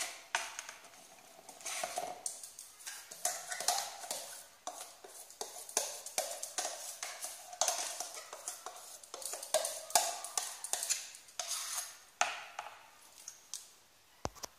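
A spoon scraping and knocking against a steel mixer-grinder jar as thick, freshly ground urad dal batter is scooped out into a plastic bowl, in a run of irregular scrapes and clinks.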